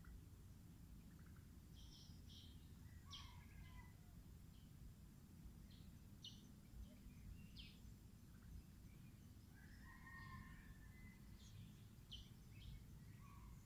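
Faint birds chirping in the surrounding trees: scattered short high chirps, with a few lower calls about three seconds in, around ten seconds and near the end, over a low steady background rumble.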